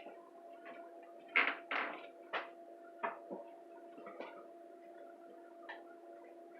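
A series of short knocks and clatters, the loudest two close together about a second and a half in, over a steady faint hum.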